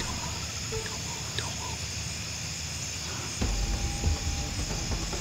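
Chorus of crickets and other insects, a steady high-pitched trill. About three and a half seconds in, a low rumble and a short held tone join it.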